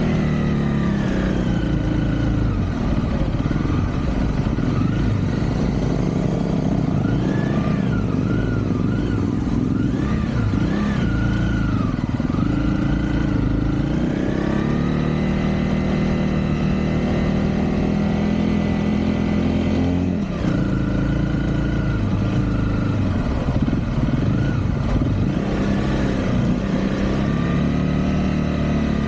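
Motorcycle engine running under way, its revs rising and falling as it rides, with a short dip in revs about two-thirds of the way through.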